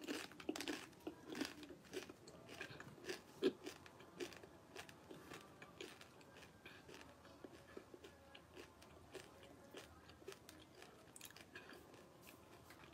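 A person chewing a Jolo Chip, a single super-hot chili tortilla chip: close, crisp crunches that come thick and fast for about the first four seconds, then thin out and grow fainter.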